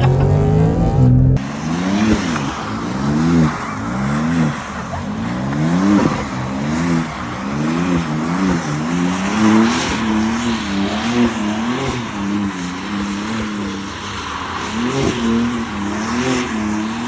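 BMW M3 engine revving up and down over and over, its pitch rising and falling about once a second, with tyre noise as the car is drifted on the street.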